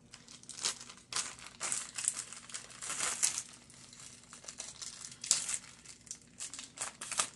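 A small mail package's wrapping being crinkled and torn open by hand, with irregular crackling rustles; the loudest come about three seconds in and again a little after five seconds.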